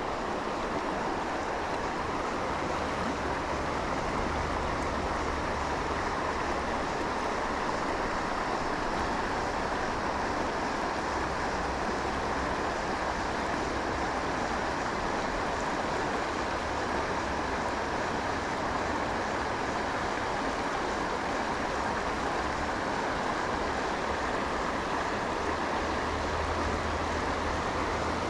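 Steady rush of flowing river water, with a low rumble of wind on the microphone that comes and goes.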